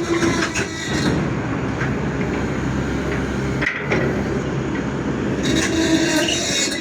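Excavator at work: engine running with scraping and a few sharp knocks from loading.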